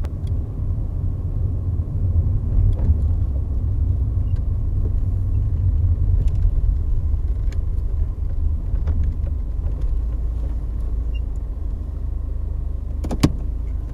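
Cabin noise of a Vauxhall Cavalier with the 2.0-litre X20XEV four-cylinder engine, heard from inside the car: a steady low rumble of engine and road as the car slows to walking pace. A single sharp click comes about a second before the end.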